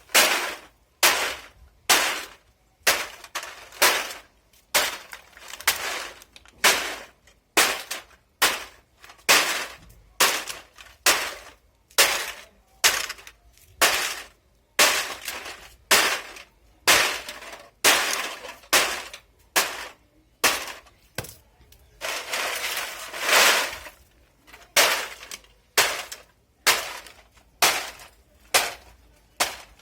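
Aluminium drink cans being crushed flat by repeated blows, a sharp metallic crunch about once a second. A longer stretch of crunching and rattling comes about two-thirds of the way through.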